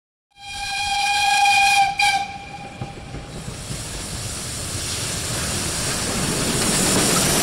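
Steam locomotive whistle: a long blast, then a shorter one just after it. After the whistle, steady hissing and the running noise of the locomotive grow louder as it passes.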